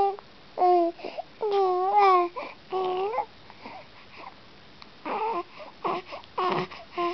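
Young infant cooing: a string of short pitched vowel sounds, each a second or less, sliding up and down in pitch. In the second half they come more broken and strained, like brief fussy whimpers.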